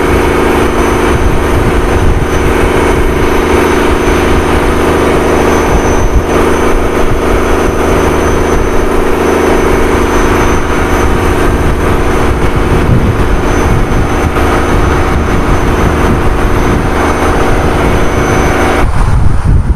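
Fishing boat's inboard engine running steadily under way, a loud drone over rushing wind and water noise. Near the end the engine's droning tones cut off abruptly while the rushing noise carries on.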